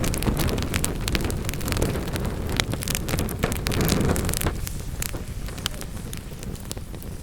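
Wood fire in a fireplace crackling and popping in quick irregular snaps, over a low steady rush from the burning that eases off after about four and a half seconds.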